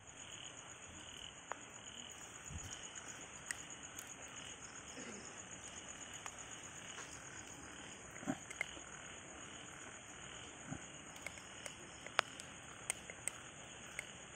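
Night chorus of insects and frogs: a steady high trill runs throughout, with a lower call repeating about twice a second. A few sharp clicks stand out, the loudest near the end.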